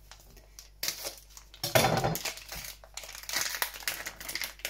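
Plastic packaging of a block of feta cheese crinkling and rustling as it is cut and pulled open with a kitchen knife, with a louder knock about two seconds in.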